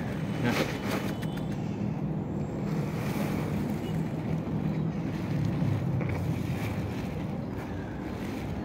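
Wind buffeting the phone's microphone: a steady low rumble, with a brief sharper noise about half a second in.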